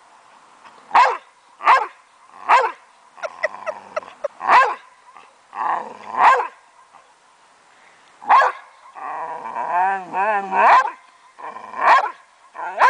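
Boxer dog barking in single sharp barks, about eight of them spaced a second or so apart, with a quick run of short yips a few seconds in and a wavering, warbling whine about three-quarters through.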